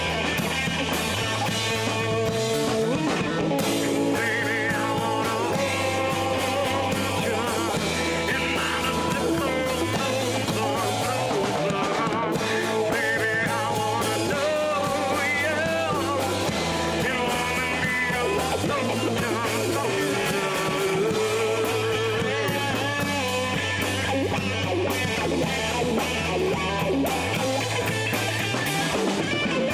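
Rock band playing a song: guitars over a bass line that moves to a new note every two seconds or so.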